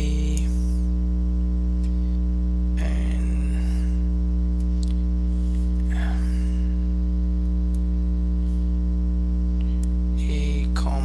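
Steady electrical mains hum, a low buzz with its overtones, at an even loudness throughout. A few faint, brief sounds come through it about 3, 6 and 10 seconds in.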